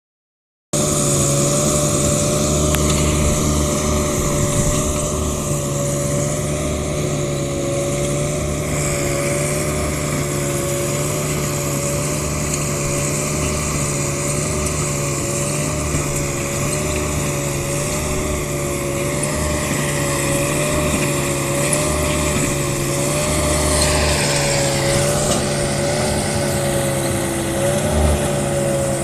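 Compact track loader with a trencher attachment running steadily, its engine holding an even speed with a steady whine over it. Near the end the higher tones sweep downward briefly.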